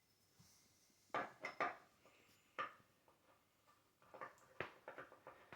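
Light knocks and clicks of shelf spacers being handled and set against the shelf as they are threaded on by hand: three in quick succession about a second in, one more a second later, and another short cluster near the end.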